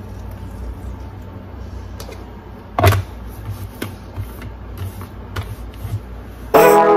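A pink drink poured into a plastic shaker bottle, then the shaker's plastic lid fitted and twisted shut: one sharp click about three seconds in, followed by a few lighter clicks. A low steady hum runs underneath, and music comes in near the end.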